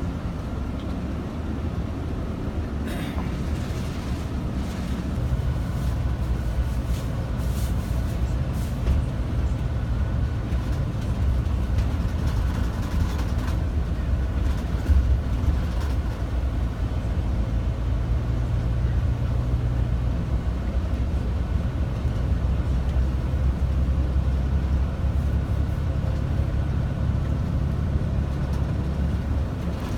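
Tour coach's engine running steadily with road noise, heard from inside the cabin as the bus drives along, with a few light rattles and clicks early on.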